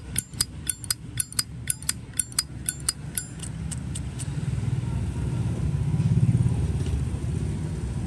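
Zippo lighter's metal lid clicking open and shut over and over, about three sharp, ringing clicks a second, stopping about three and a half seconds in. Then a passing motor vehicle's low rumble swells and fades.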